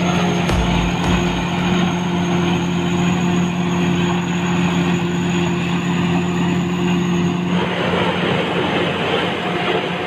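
Combine harvester running while it cuts standing corn: a steady engine and machinery drone with a faint high whine. About three-quarters of the way through it changes to a rougher, noisier running sound.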